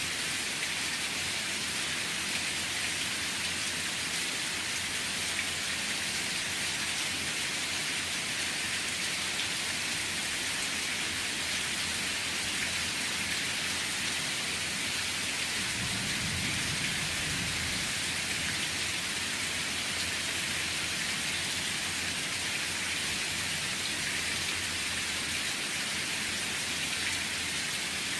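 Steady rain falling, an even hiss without a break. A low rumble swells briefly just past the middle.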